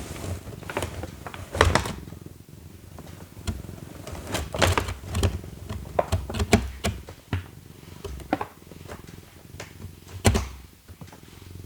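A cat scratching and knocking about in a cardboard box: irregular taps, scrapes and dull thumps on the cardboard, with a few louder knocks scattered through.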